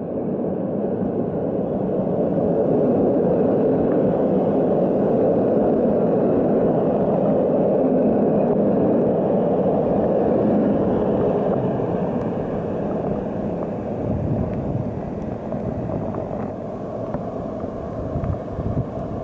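Passenger coaches of a locomotive-hauled train rolling past on the rails with a steady rumble of wheels on track. The rumble fades over the last several seconds as the train pulls away.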